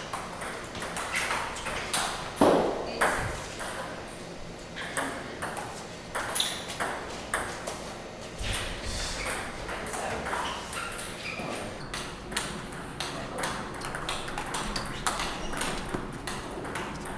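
Table tennis balls clicking off paddles and table tops in quick rallies, with more than one rally going at once. One louder knock comes about two and a half seconds in.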